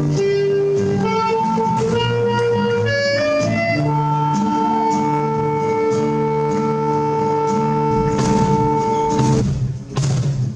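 Saxophone and flamenco guitar playing together. The saxophone climbs through a short run of notes, then holds one long note for about five seconds over strummed guitar chords. Near the end the guitar strums hard, and the music breaks off briefly before a new section starts.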